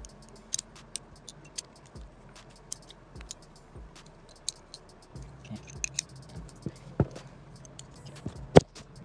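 Light metallic clicks and taps as a .21 nitro engine sleeve in its steel repinching clamp is handled and turned by hand, with a sharper knock about seven seconds in and a louder one near the end.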